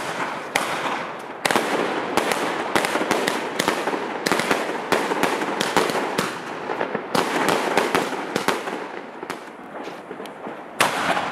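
Fireworks going off: shells fired from a ground-launched battery, a rapid, irregular string of bangs over crackling. It thins out about nine seconds in, with one more loud bang near the end.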